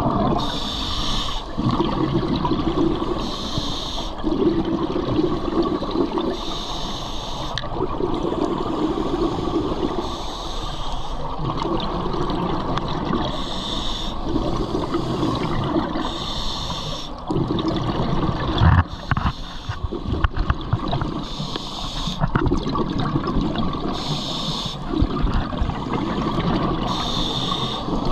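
Scuba diver breathing through a regulator underwater: a hiss on each inhale alternating with a burst of exhaled bubbles, about every three seconds. A single sharp knock about two-thirds of the way through.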